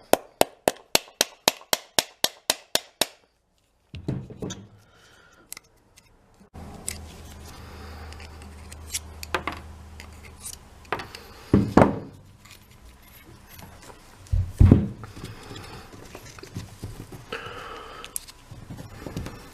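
Small steel parts of an air impact wrench's vane motor being handled: a quick even run of clicks, about four a second, for the first three seconds, then scattered metal clinks and knocks as the sticking vanes are worked out of the rotor, with a couple of louder thuds. The vanes are gummed up, which is why they stick in their slots instead of dropping out.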